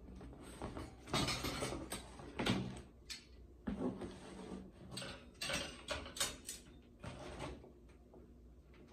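Cardboard box being tipped and handled while chrome wire dish-rack parts are slid out of it: irregular scraping and rustling with sharp clicks of the metal pieces, quieter toward the end.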